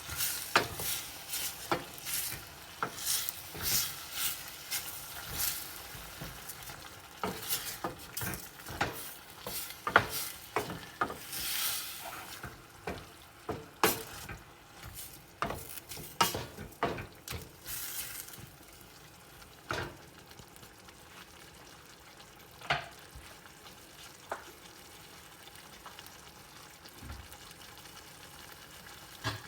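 A utensil stirring and scraping food in a hot pan, with clinks against the pan over a steady sizzle. The stirring stops after about 18 seconds, leaving mostly the sizzle with an occasional clink.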